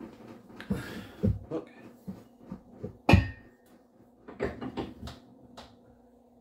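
Kitchen clatter: scattered knocks of containers and utensils being handled, the loudest a sharp knock about three seconds in, over a steady low hum.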